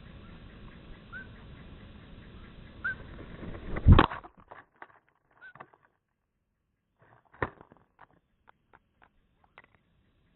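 Small birds giving a few short, rising chirps over a steady outdoor hiss. About four seconds in comes a loud thump. After it the background drops away and only scattered faint clicks and ticks are left.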